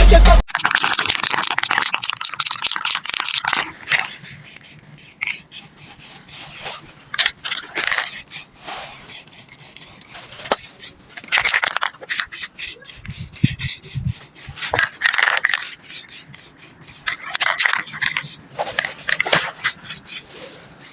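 Irregular hand scraping and scratching strokes on a bicycle, coming in short separate bursts with pauses between them.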